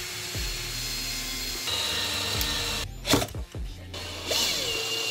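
Cordless drill running, boring pilot holes and driving screws into wood; the motor whine changes pitch about a third of the way in and again near the end, with a sharp knock about three seconds in.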